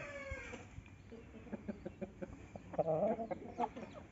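Roosters calling: the tail of a crow trails off and falls in pitch in the first half-second, followed by scattered clucks and short calls, with a louder call about three seconds in.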